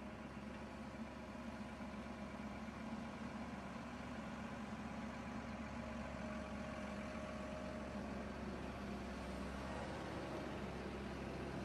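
Mercedes-Benz box truck's diesel engine running as the truck drives slowly up and turns past, growing gradually louder.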